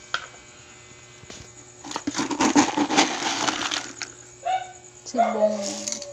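Dry pet kibble poured from a plastic scoop into a stainless steel bowl: a dense rattle of pellets hitting metal, lasting about two seconds.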